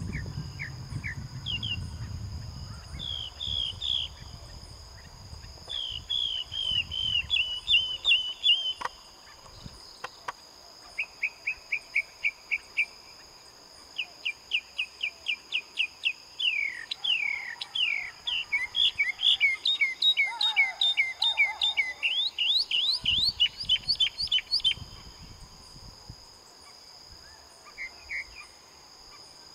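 Northern mockingbird singing: a varied string of phrases, each a quick run of the same note repeated several times, with a long dense stretch in the middle and a pause near the end. A steady high insect drone runs underneath, and there is a low rumble in the first several seconds.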